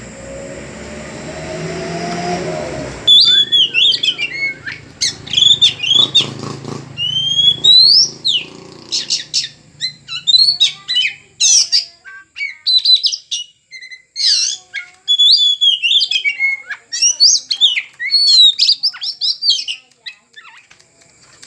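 Oriental magpie-robin (kacer) singing loud, rapid whistled phrases that slide up and down, in bursts with short pauses. A rising hum and noise come before it, in the first three seconds.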